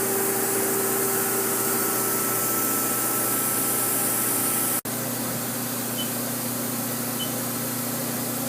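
A powered-up Haas SL-20T CNC lathe running at rest, a steady hum with hiss and faint steady tones, nice and quiet. About five seconds in the sound drops out for an instant, and afterwards the hum carries a lower tone.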